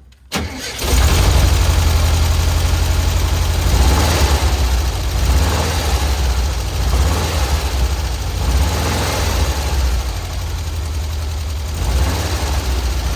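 Volkswagen Kombi engine started up, catching within about a second, then idling steadily, its belt freshly re-tensioned after being loose.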